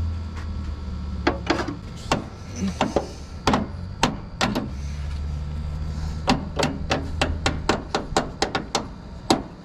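Hammer blows on the steel of a 1971 John Deere 140 riding mower: irregular sharp strikes that come quicker, about three a second, in the second half.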